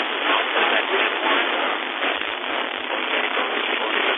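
Weak FM two-way radio transmission over an amateur repeater: a steady wash of loud hiss and static with a faint, broken voice buried under it, the sound of a signal too weak to fully quiet the receiver.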